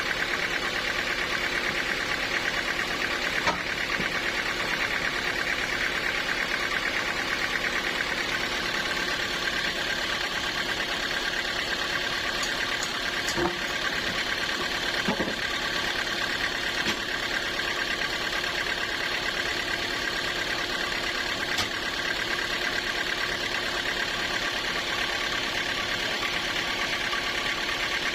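Sawmill engine running steadily, with a few faint knocks.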